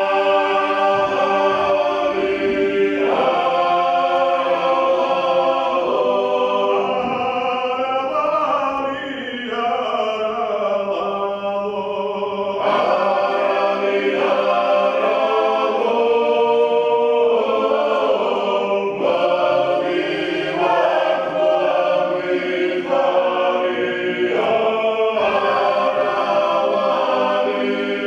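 A choir singing a folk song in several parts at once, holding chords that change phrase every few seconds.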